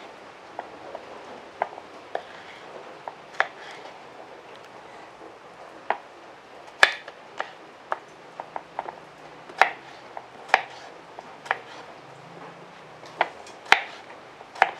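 Kitchen knife chopping squash into large chunks on a wooden cutting board: irregular sharp knocks of the blade striking the board, a few of them much louder than the rest.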